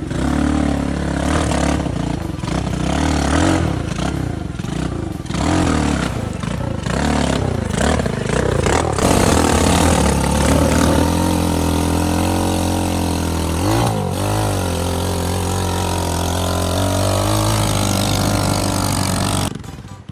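Honda Cub motorcycle's small single-cylinder engine revving in uneven bursts while being ridden slowly over river-bed rocks, with clattering. About halfway through it settles into a steadier run, with one quick rise and fall of revs.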